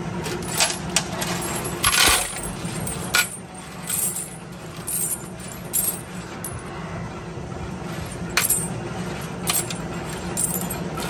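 Steel washers clinking as they land and slide in a metal pan beneath a washer punch press, in irregular chinks, the loudest about two seconds in, over the press's steady low hum.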